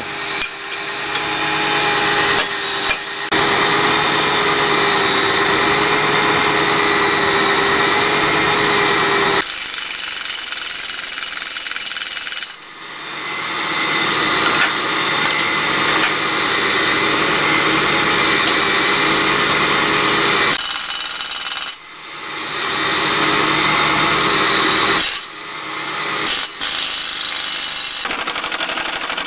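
A power tool running in long stretches with a steady whine, dropping away briefly and starting again several times.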